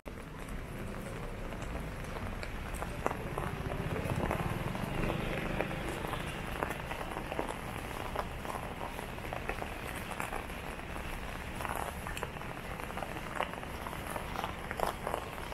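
Moderate drizzle falling on an umbrella and wet pavement: a steady hiss scattered with many small, sharp drop ticks.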